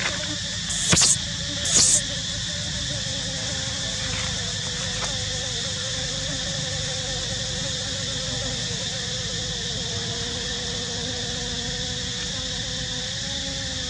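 Steady buzzing drone of forest insects. Two short, sharp high-pitched bursts about one and two seconds in are the loudest sounds.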